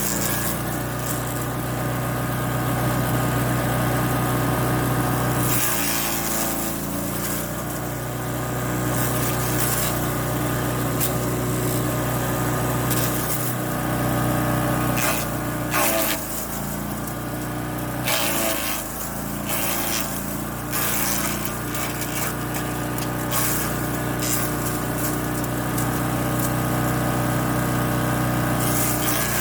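224cc Champion wood chipper's single-cylinder gas engine running at steady speed while dry branches are fed in, with sharp cracks and crunches as the sticks are chipped. The engine's pitch dips briefly several times as it takes the load, most clearly about six seconds in and again around fifteen to twenty-one seconds.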